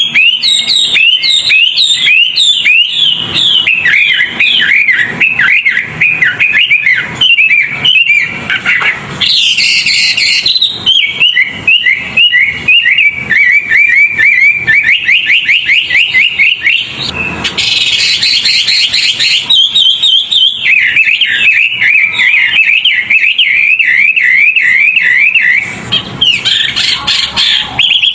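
Songbird singing fast, unbroken runs of rapid, repeated sweeping whistled notes, several a second. Three times the runs break into a harsher, raspy burst. A master recording used to teach caged songbirds a faster song.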